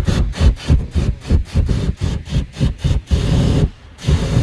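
Hippopotamus pod calling: a run of deep, rasping grunts, about four or five a second, then a couple of longer honks near the end.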